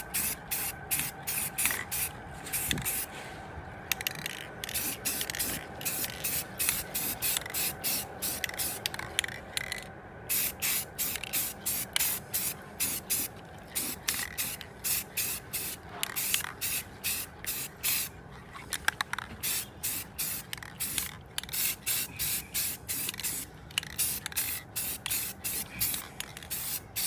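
Aerosol can of Rust-Oleum aluminum spray paint hissing in many short spurts in quick succession, laying a light first coat on a wheel rim.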